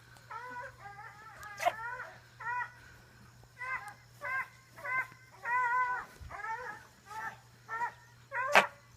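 Chicken giving short, repeated whiny calls, broken by two sharp sneezes, one about one and a half seconds in and one near the end.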